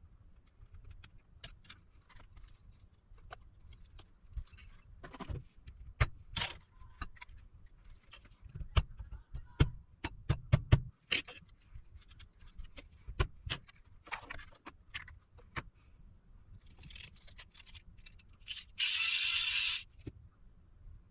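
Small metal tools clicking and tapping as they are handled on a repair bench, in irregular sharp strokes. Near the end comes a loud, even hiss lasting about a second.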